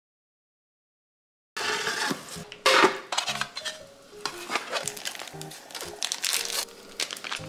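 Dead silence for about a second and a half, then cookware and utensils clattering and clinking, with one louder clank soon after, over quiet background music.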